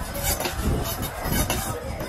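Long knife cutting through a large fish on a wooden chopping block: several short scraping strokes over a steady low background rumble.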